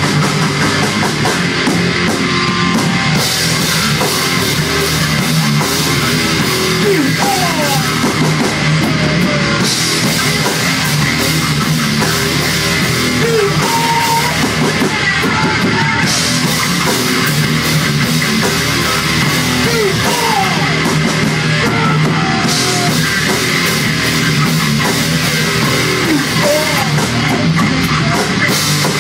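Rock band playing live on electric guitars, electric bass and a Tama drum kit, loud and dense, the top end brightening and falling back every six seconds or so.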